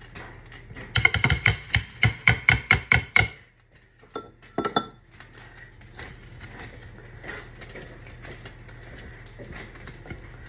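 A fast run of about a dozen clinking knocks of a utensil against a glass mixing bowl, then a couple of ringing glass clinks, followed by a spatula quietly scraping and stirring thick cake dough in the glass bowl.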